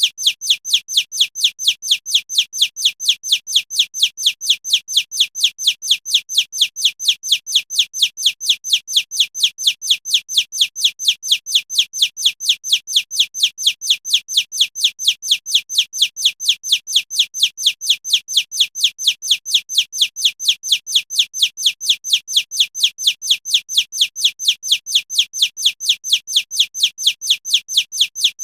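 Stock sound effect of short, high chirps repeating very evenly, about four a second, each one falling quickly in pitch.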